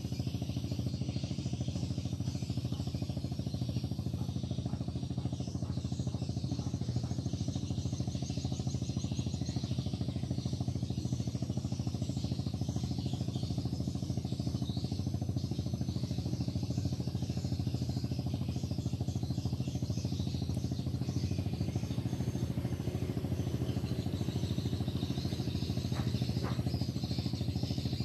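A small engine running steadily at an even speed, with faint high chirping above it.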